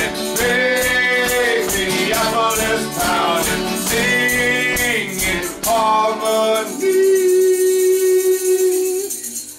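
Folk-rock band: several men singing a wordless chorus over strummed acoustic guitars, a shaken tambourine and stomping feet. About six seconds in, the stomping drops out, leaving one long held sung note that fades near the end.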